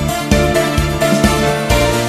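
Background music with a steady beat of plucked or struck notes about twice a second; the bass note shifts lower near the end.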